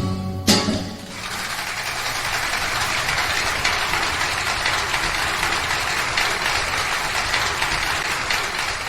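A last guitar chord is struck about half a second in, then audience applause starts a second in and goes on steadily.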